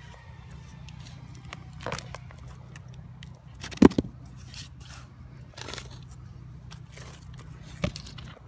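A hand brushing and scraping sawdust off the freshly sawn end grain of a log: scattered scraping and crackling, with one sharp knock about four seconds in and a smaller one near the end.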